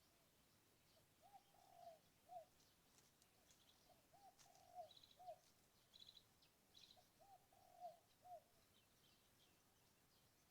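A dove cooing: the same short phrase of a few low notes, three times about three seconds apart, with faint high chirps from small birds.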